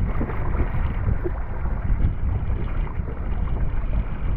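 Steady wind rumble on the microphone over water lapping and splashing around a kayak being paddled.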